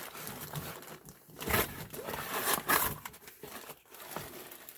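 Packaging being handled and unwrapped: irregular crinkling and tearing, louder about a second and a half in and again near the three-second mark.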